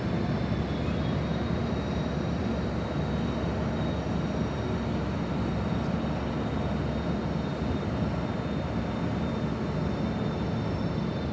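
Siemens SC-44 Charger diesel locomotive standing with its engine running, a steady low rumble with a faint high-pitched whine over it.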